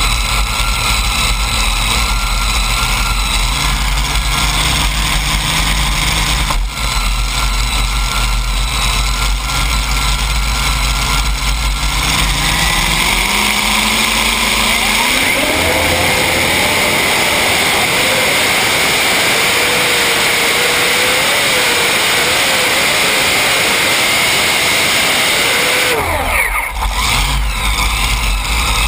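Modified pulling tractor's two Hemi V8 engines, heard from on board. They run at low revs at the line, rev up from about twelve seconds in, and are held at full power for about ten seconds down the track with the pitch wavering slightly. Near the end they are cut back suddenly to idle.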